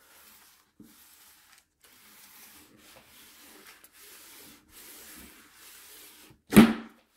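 Clothes iron pushed back and forth over paper laid on a canvas: a soft swish with each stroke. About six and a half seconds in there is one short, loud scrape as the iron catches on a crease.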